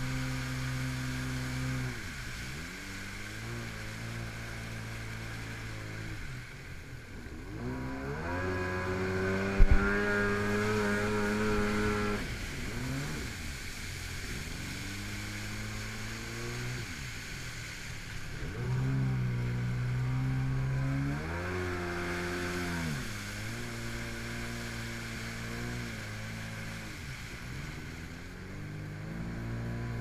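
Yamaha GP800R personal watercraft's two-stroke twin engine, its pitch rising and falling several times as the throttle is opened and eased off, with water rushing off the hull. One sharp thump about ten seconds in.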